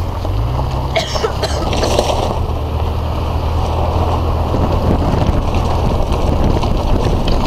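1999 Jeep Cherokee Laredo's engine revving up as it pulls away off-road, heard from inside the cabin, its hum rising in pitch about half a second in. A cluster of rattles and knocks comes about a second or two in as the Jeep moves over the rough ground.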